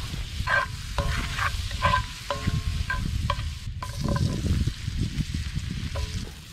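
Whole carrots being laid into hot melted butter in a cast-iron skillet, the butter sizzling, with scattered clicks and knocks as the carrots are set down in the pan.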